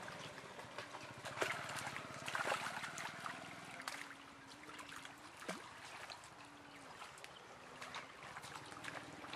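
Live fish thrashing and water splashing in a net full of fish as hands work through the catch: irregular sharp splashes and sloshing, busiest in the first three seconds.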